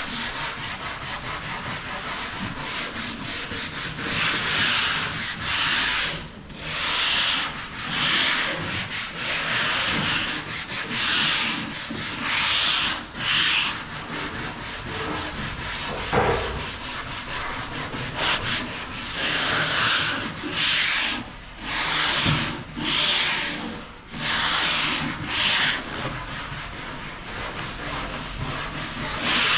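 Sandpaper rubbed back and forth over wooden cabinet doors, sanding them smooth before lacquer paint. The strokes come about once a second, with one sharp knock about halfway through.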